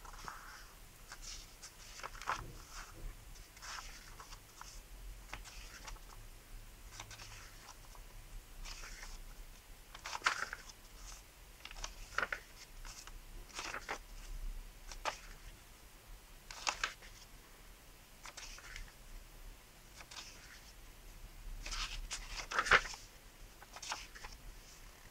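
Paperback book pages being handled and turned by hand: soft paper rustles and flicks come every second or two, the loudest a crisp flick near the end.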